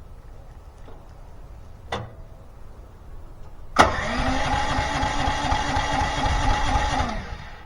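Small single-cylinder engine on a log splitter being cranked, electric starter whirring for about three seconds before stopping abruptly, without the engine catching (cold engine, choke not yet on). A click comes about two seconds in, just before the cranking.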